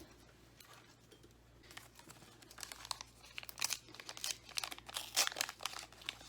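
Plastic wrapper of a Pokémon card pack crinkling and tearing as it is pulled open by hand. It starts about a second and a half in and grows busier toward the end.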